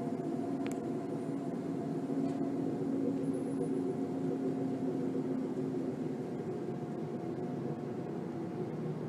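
A steady low drone of several held tones, with no breaks, from a recording of a so-called strange sound from the sky.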